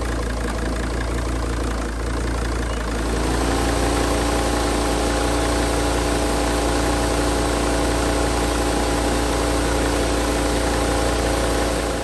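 A Sprinter van's diesel engine idling with the air conditioning running. About three seconds in, a whine rises in pitch and then holds steady over the idle.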